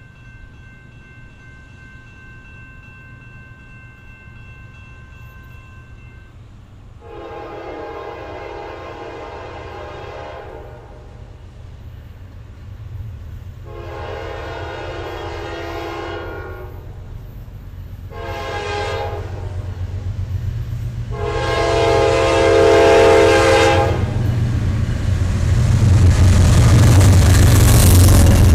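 Diesel freight locomotive's air horn sounding the grade-crossing signal, long, long, short, long, as a double-stack container train approaches. After the last blast the locomotives' engine rumble and the wheel noise of the passing cars swell sharply. A steady high tone before the horn stops about six seconds in.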